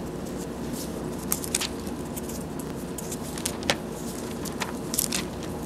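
Thin Bible pages being turned and leafed through, giving a few short, crisp paper rustles and crackles over a steady room hum.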